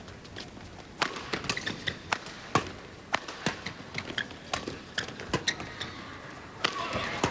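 Badminton rally: rackets striking a shuttlecock in a fast exchange of sharp cracks, two or three a second from about a second in, with shoes squeaking on the court floor between hits.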